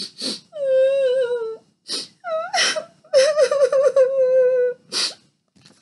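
A woman's voice acting out a child crying: two long wavering wails, each over a second, with short sobbing breaths before, between and after them.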